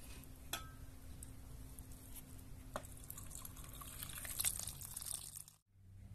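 Water dripping and splashing, with a few sharp light knocks, cutting off suddenly near the end.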